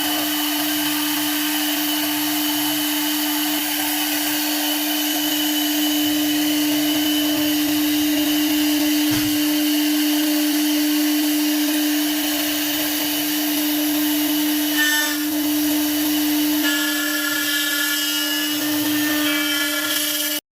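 CNC lock-hole drilling and milling machine for aluminium doors running, its spindle giving a steady whine over a noisy machining hiss. Short higher tones that change in steps come in near the end, and the sound cuts off suddenly.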